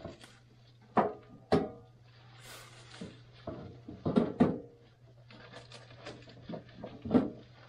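Clear plastic wrapping rustling and crinkling as it is pulled off a tabletop gas griddle, with several sharp knocks as the metal griddle is handled against its packaging.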